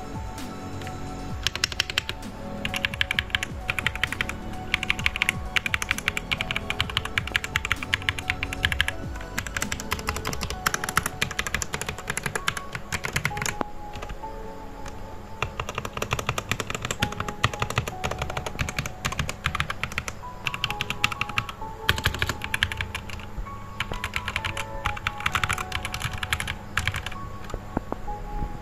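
Fast typing on a Zifriend ZA68 mechanical keyboard: rapid runs of key clicks with short pauses, starting about a second and a half in, over background music.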